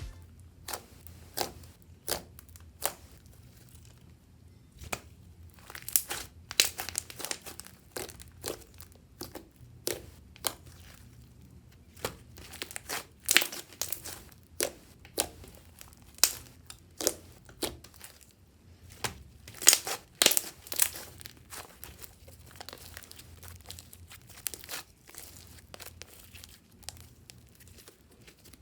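Plastic bag crinkling and crackling as slime is squeezed and kneaded inside it, in irregular sharp crackles, some single and some in quick clusters.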